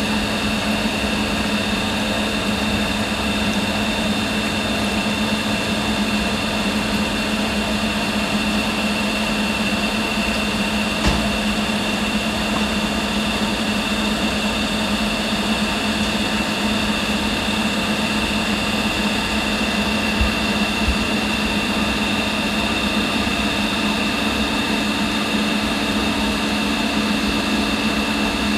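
Electro-discharge machine's dielectric pump running steadily while it fills the machining chamber with dielectric fluid: a steady hum with a low tone and a high whine over noise. A single brief knock about eleven seconds in.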